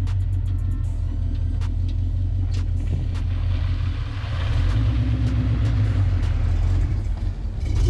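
Jeep engine running at low speed on an off-road trail. The drone grows louder about halfway through, and sharp knocks and clatter come through now and then.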